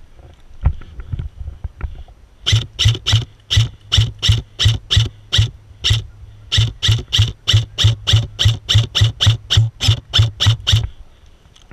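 Airsoft replica rifle firing a long string of rapid single shots, about three to four a second, with a short pause about six seconds in. A few dull knocks come just before the firing starts.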